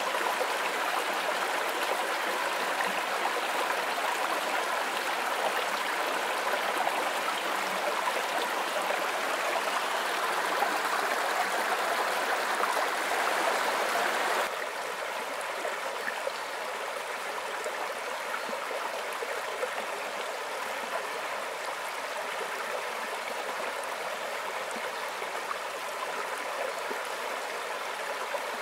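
Shallow woodland stream running over rocks and small cascades: a steady wash of water. About halfway through it changes abruptly to a quieter flow.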